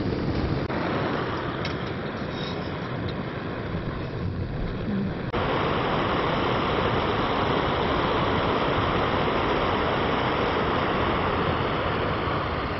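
Backpacking gas canister stove (MSR) burning with a steady roaring hiss, which steps up louder about five seconds in.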